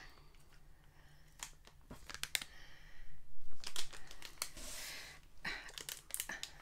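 Plastic candy wrapper crinkling and crackling as it is handled and torn open around a peanut patty, with two louder bouts of rustling, about three and about five seconds in.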